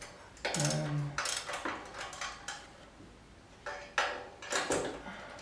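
Metal hand tools and loose exhaust fittings clinking and knocking together in a few separate strikes, with a short voiced sound about a second in.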